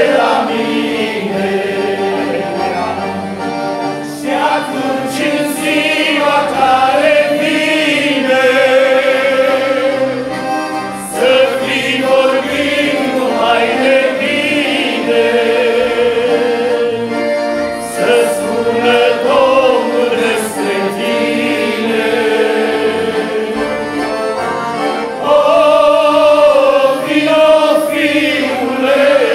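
Men's voices singing a Romanian hymn with vibrato in harmony, accompanied by two accordions.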